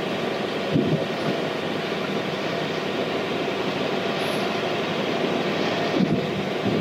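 Steady rush of wind and sea noise aboard a sailboat underway, with a low, even drone underneath.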